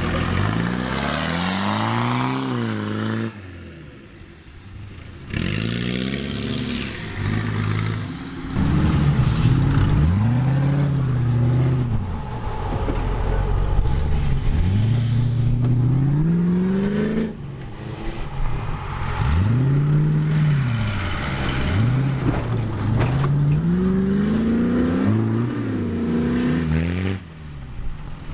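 Off-road 4x4 engines revving hard and easing off over and over, the pitch rising and falling, with abrupt breaks where the footage cuts between runs.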